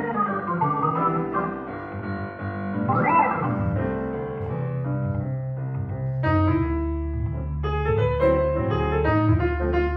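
Jazz piano duet: an acoustic grand piano and an electric stage keyboard playing together over a sustained low bass line, with a quick run up and back down the keys about three seconds in.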